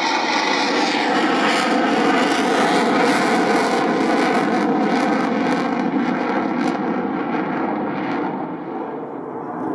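Fighter jet engine noise during an airshow display pass: a loud, steady rush with a crackling edge, easing off and duller about eight seconds in.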